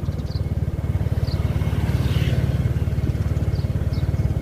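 Motorbike engine running steadily at cruising speed, a low, even, rapid pulsing.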